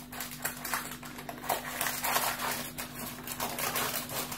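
Parchment baking paper rustling and crinkling in irregular handfuls as it is folded down around the edge of a lined cake tin.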